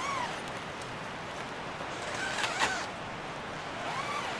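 Steady rustling hiss of wind in the woods, with a bird calling three times in short arched notes, the clearest about halfway through.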